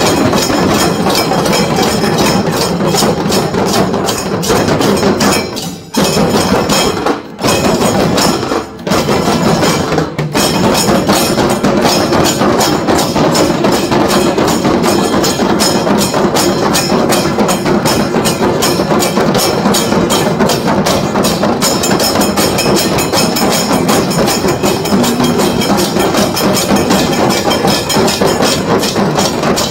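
Kailaya vathiyam temple percussion ensemble: drums beaten loudly in a fast, driving rhythm, with a few short breaks between about six and ten seconds in.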